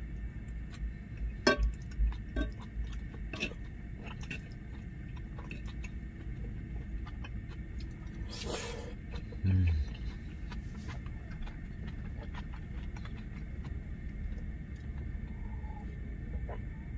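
A man eating from a cast-iron skillet: scattered clicks of the utensil against the pan and chewing, over a steady low hum. A short hiss comes about eight and a half seconds in, followed by a brief low 'mm' from the eater.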